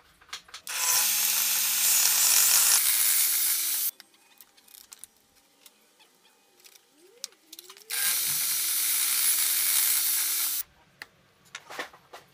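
Table saw cutting through a wood board twice. Each cut is about three seconds of loud blade-in-wood noise over a steady motor hum, with a quieter gap of light handling noise between the cuts.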